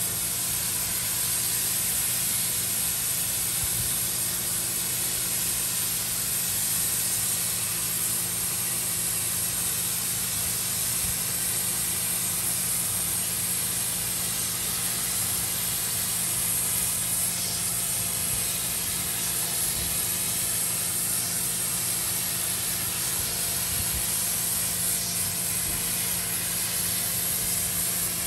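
Pressure washer jet spraying steadily onto a carpeted floor mat, a constant hiss of water, with the machine's steady low hum running underneath.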